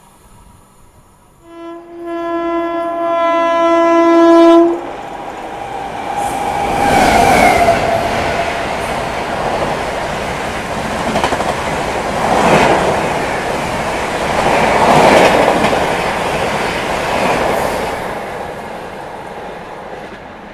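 AC Duronto Express overtaking on the adjacent track: its locomotive horn sounds one long blast that cuts off abruptly, then the train rushes past close by with wheel clatter, fading as it draws away near the end.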